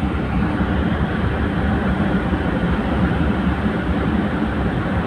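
Tugboat's diesel engines running steadily, a loud, even rumble with no breaks.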